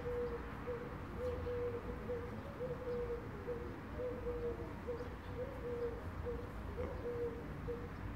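A bee buzzing in short on-and-off stretches as it flies about close to the ground, its pitch bending now and then.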